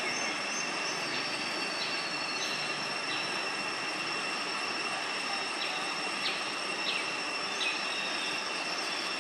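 Steady high-pitched drone of insects over a dense hiss, with short, high, falling bird chirps repeating through it every half second or so.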